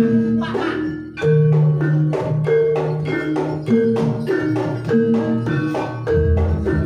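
Javanese gamelan playing jaranan music: metallophones strike a repeating melody at a steady beat with hand-drum strokes, and a low sustained gong-like tone comes in about six seconds in.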